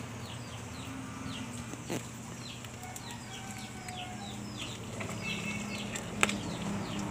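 A metal ladle knocking against a pot of boiled guyabano leaves, two sharp clinks about two seconds in and again about six seconds in. Behind them runs a steady background of rapid, short, falling chirps.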